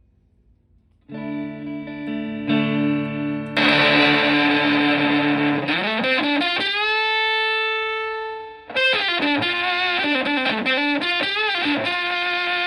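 Stratocaster electric guitar through a germanium Fuzzrite fuzz pedal into a Fender Twin Reverb-style amp: a fuzzed chord rings out about a second in and turns louder and brighter, then a note bends up and sustains before a run of quick notes and another held chord.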